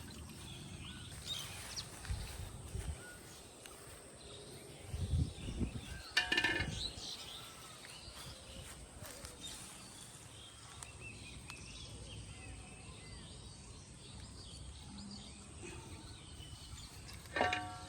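Outdoor pond-side ambience with faint bird chirps, a few low knocks about five seconds in, and a short pitched call about six seconds in and again near the end.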